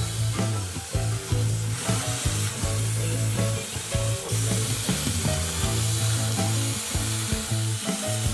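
Arc welding crackling and sizzling as stitch welds are laid on steel plate, the crackle growing stronger about two seconds in. Background music with a steady bass line plays over it.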